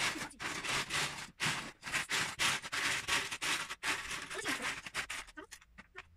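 Hands raking and sifting through a plastic tub of loose Lego bricks, small plastic pieces clattering and rattling in uneven spells, stopping about five seconds in.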